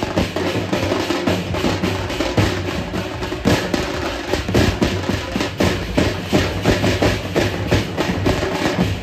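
A procession drum band playing a fast, dense rhythm on big barrel drums, a continuous stream of strikes.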